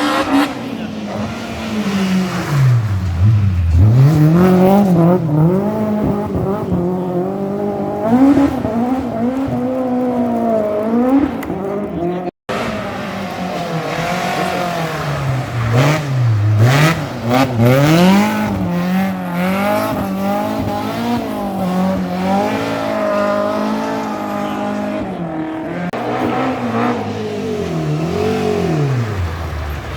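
Rally car engines revving hard through corners, the pitch climbing and dropping again and again with throttle and gear changes. A sudden break about twelve seconds in is followed by another stretch of hard revving.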